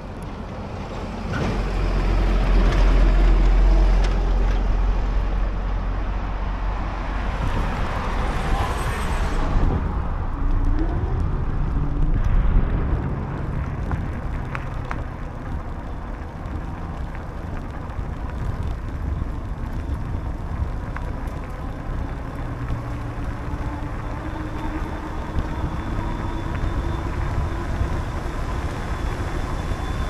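Wind buffeting the microphone of a bicycle-mounted camera while riding, a heavy low rumble over the first several seconds, with tyres rolling over pavement and then a path. A brief louder rushing swell comes about nine seconds in.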